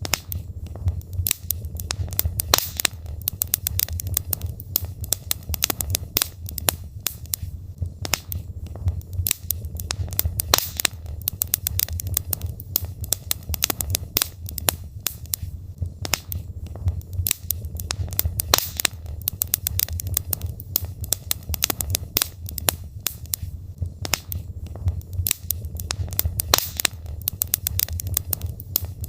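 Logs burning in a fireplace, crackling with many sharp, irregular pops over a steady low rumble of the fire.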